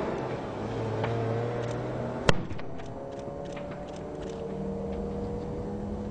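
A vehicle engine running with a steady hum. A single sharp crack a little over two seconds in is the loudest sound, followed by several fainter clicks.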